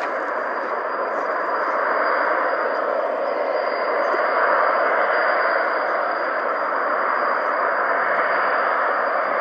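Aircraft engine running steadily: a continuous rushing noise with a thin, steady high whine on top.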